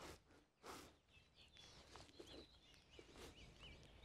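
Near silence outdoors: a small bird chirping faintly in a quick series of short calls through the middle, with a few soft rustles as onion sets are dropped by hand onto the soil.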